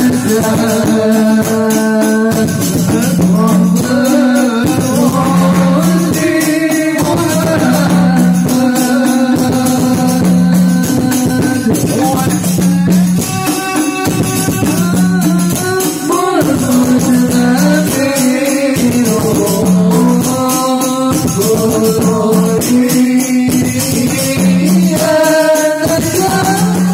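Live sholawat: men singing Islamic devotional verses into microphones over a dense, steady rhythm of rebana frame drums, amplified through a PA system.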